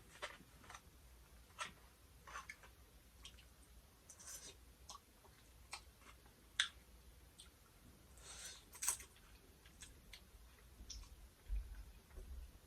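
Faint, scattered clicks and mouth smacks of someone eating noodles quietly, with two short hissy swishes about four and eight seconds in.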